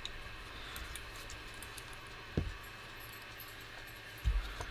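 Small quadcopter screws and parts handled on a workbench: faint scattered clicks and ticks, with two soft low thumps, about two and a half and four and a quarter seconds in.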